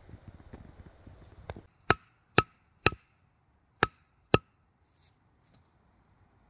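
Five sharp wooden knocks with a short ringing tone, three in quick succession and then two more after a brief pause, as a short sawn wooden stake is knocked into the forest floor. Soft rustling comes before them.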